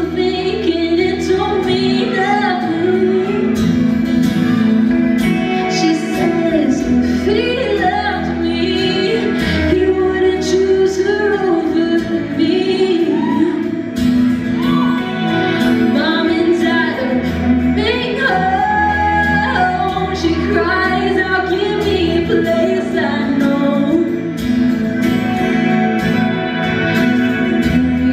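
A live pop-rock band performing, with a female lead vocalist singing a melodic line over acoustic guitar, electric guitar and bass.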